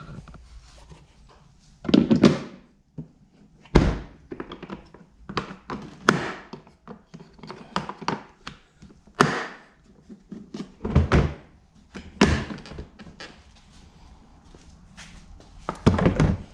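Milwaukee Packout hard plastic toolboxes being handled: a string of irregular thunks and knocks as lids, latches and boxes are moved. The heaviest knocks come about two seconds in, around four seconds in, about eleven seconds in and at the very end.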